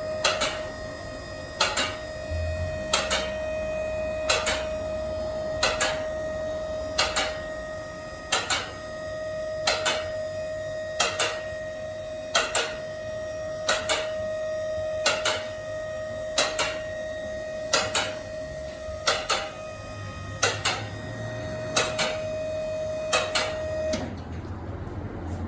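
Sharp mechanical clicks, two at a time, repeating evenly about every second and a half, over a steady high-pitched tone that cuts off near the end.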